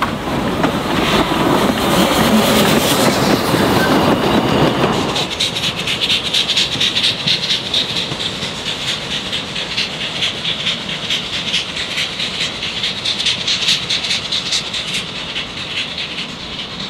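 Narrow-gauge steam train running by: a loud rushing sound for about the first five seconds, then a fast, steady clatter of wheels on rail that slowly fades.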